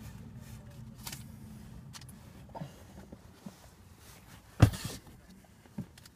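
Rustling and small clicks of things being handled inside a stopped car, with one sharp knock about four and a half seconds in, the loudest sound.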